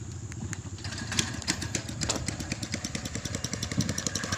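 Small single-cylinder engine of a ces, the motorised river-crossing boat, running with a rapid, even putter that grows slowly louder.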